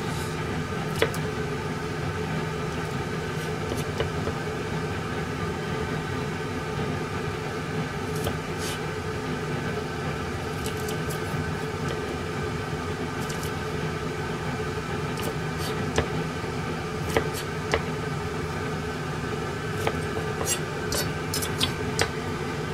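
Steady mechanical hum under scattered taps and clicks of garlic cloves and a kitchen knife on a plastic cutting board. The clicks come more often in the last several seconds.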